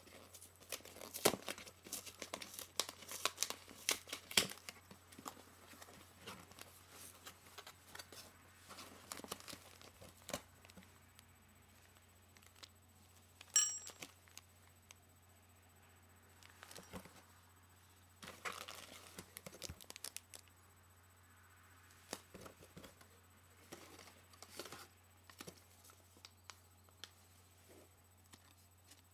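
Yo-yo packaging being opened by hand: bursts of crinkling and tearing, heaviest in the first ten seconds and returning in shorter spells later, with one sharp ringing click about halfway through, over a steady low hum.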